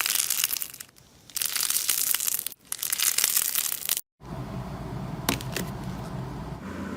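Slime being squeezed and pressed, crackling and crunching in three bursts. After a short break a softer, steadier crackle follows over a low hum.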